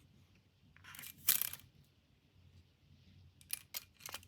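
Handling noise from the clamp being moved and measured: a short scraping rustle about a second in, then a few light clicks near the end.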